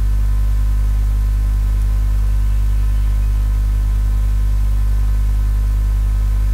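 Steady low electrical mains hum with a faint hiss underneath, unchanging throughout.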